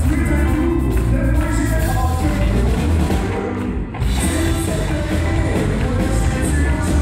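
Live country band playing loud on electric guitar, acoustic guitar, fiddle and drums, with a man singing. The band thins out briefly just before four seconds in, then comes back in full.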